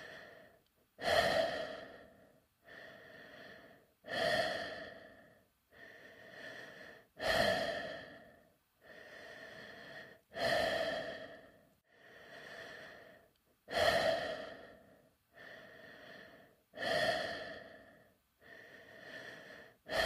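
Slow, regular breathing heard inside a space suit helmet, in a sound effect: a quieter breath, then a louder one that starts sharply and fades, about six breath pairs, one every three seconds or so, with a hollow ring from the closed helmet.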